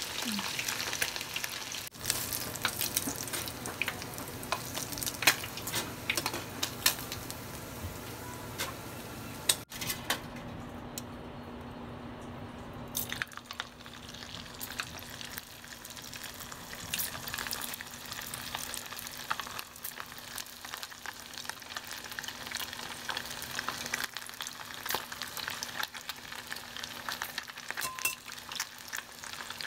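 Small fish deep-frying in a pan of hot oil: a dense, steady crackle and sizzle of popping bubbles.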